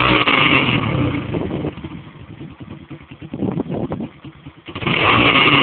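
2008 Honda CG 150 Titan's single-cylinder four-stroke engine breathing through a Roncar aftermarket exhaust, blipped from idle. There is a loud rev at the start, a short smaller blip about three and a half seconds in, and another loud rev near the end, with a pulsing idle between.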